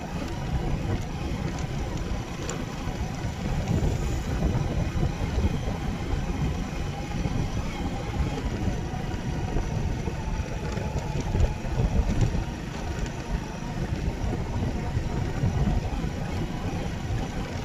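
Uneven low rumble of a vehicle's engine and wind buffeting the microphone while riding along a dirt track.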